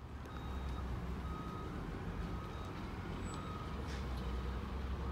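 A garbage truck's reversing alarm giving faint, repeated beeps about once a second over a steady low rumble of the truck and street.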